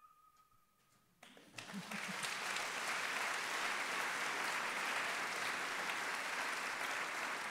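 The last held note of the music dies away, then about a second in an audience starts applauding, quickly building to steady clapping that carries on.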